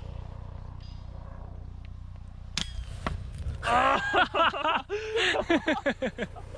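A single sharp crack of an air rifle shot about two and a half seconds in, followed about a second later by a burst of laughter.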